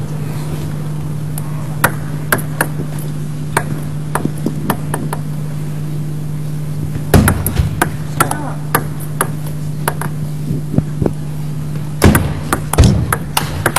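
Sharp clicks of a table tennis ball striking bats and the table. They come sparsely at first, then in quick runs of rallying about halfway through and again near the end, over a steady low hum.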